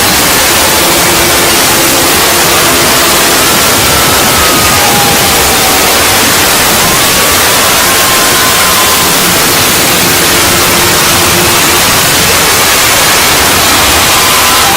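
Loud, steady static hiss like white noise, with faint wavering tones drifting in and out beneath it.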